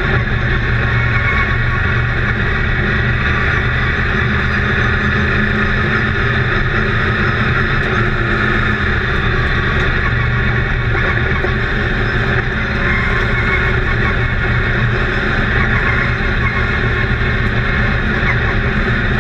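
Race truck's engine running hard at speed, heard from inside the cab: a loud, steady drone that eases briefly about twelve seconds in.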